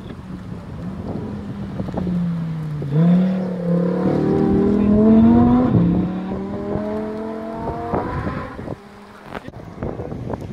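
Rally car engine revving hard as the car comes through a bend, its note dipping and climbing several times and loudest in the middle. The engine sound cuts off abruptly near the end.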